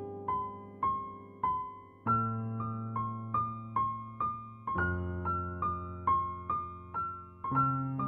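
Background piano music: a slow melody of single struck notes, about two a second, over low held bass notes that change every few seconds.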